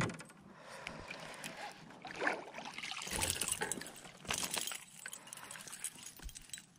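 Light water splashing and trickling beside a kayak, in short uneven bursts, with a sharp knock right at the start.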